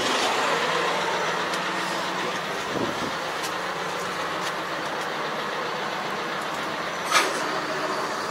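A large farm tractor's diesel engine running steadily, just after being started. There is a sharp click about seven seconds in.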